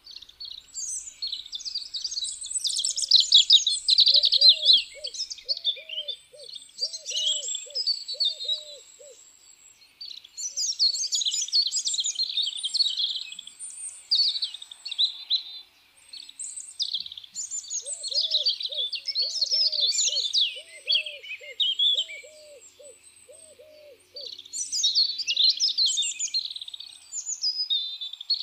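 European robin singing: phrase after phrase of high, thin, warbling notes with short pauses between them.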